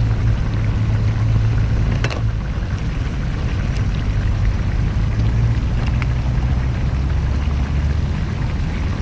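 Wind buffeting a GoPro's microphone: a loud, steady low rumble, with a few faint clicks, about two, four and six seconds in.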